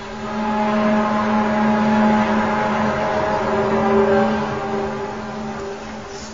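Low humming drone of several steady held tones that swells over the first few seconds and then slowly fades: one of the mysterious 'strange sounds' recordings said to be heard in the sky around the world.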